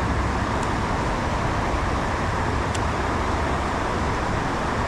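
Steady rushing noise of flowing river water, with a deep rumble underneath and two faint high ticks.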